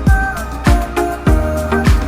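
Background music with a steady beat: a deep kick drum about every 0.6 seconds under held keyboard chords.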